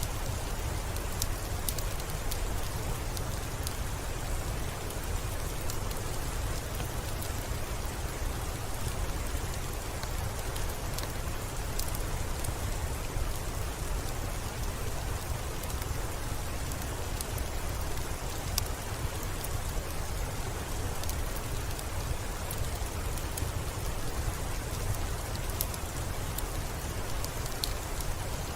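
Steady rain: an even hiss with a low rumble underneath and scattered sharp ticks of individual drops.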